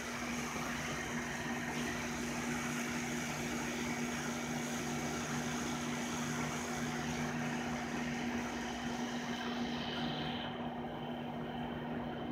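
Distant approaching high-hood diesel locomotive: a steady low engine hum and rumble.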